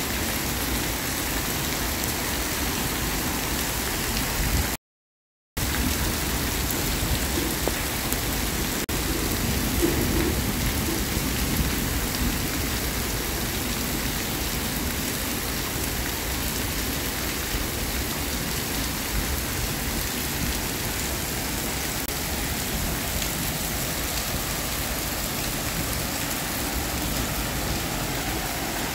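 Heavy rain pouring steadily. The sound cuts out completely for under a second about five seconds in.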